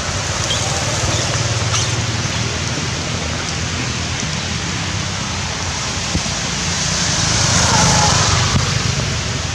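Steady rushing background noise with a low rumble under it, swelling a little near the end, with a faint short squeak about eight seconds in.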